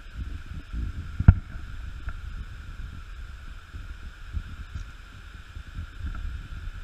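Low, uneven rumbling like wind buffeting the camera microphone, over a faint steady high hum, with one sharp knock about a second in.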